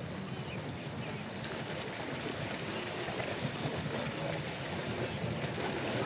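A wildebeest and zebra herd crowding at the water's edge: a steady wash of water and herd noise.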